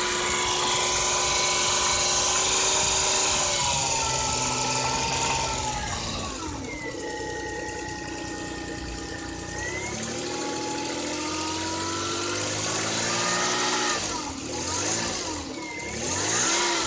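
Toyota 1JZ-GE inline-six engine held at raised revs, let down to a lower speed, brought back up, then blipped quickly three times near the end. The owner hears a knock at around 3000 rpm but not at idle, which he puts down to a spun bearing shell.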